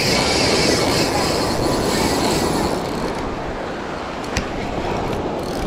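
RUNCL Titan 2 spinning reel's drag buzzing as a hooked permit pulls line off, over the rush of surf and wind on the microphone. The high buzz fades about three seconds in.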